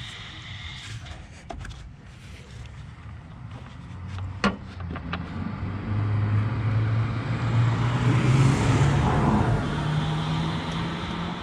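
A passing motor vehicle's engine: its note swells from about four seconds in and rises in pitch, loudest about eight seconds in, then eases off. One sharp click about four seconds in.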